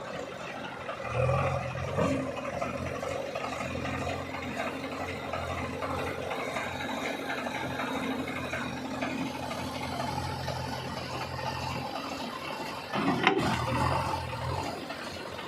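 Diesel engine of heavy machinery running steadily under load, with a sharp metallic knock and a short louder surge about thirteen seconds in.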